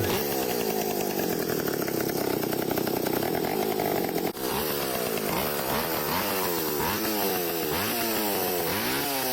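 A small motor running steadily, then after a short break its pitch repeatedly rises and falls, as with changing speed or load.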